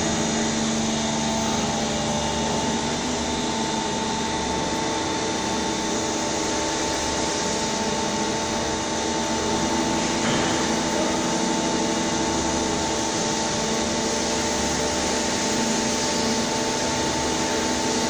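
PVD vacuum coating machinery running steadily: a constant mechanical hum carrying several held tones over an even noise, without change.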